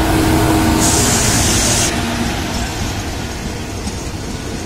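WAP-4 electric locomotive passing close by, with a steady hum from its motors over rolling wheel rumble. A loud hiss comes about a second in and lasts about a second. After that the sound drops to the lower rumble of the passenger coaches rolling past.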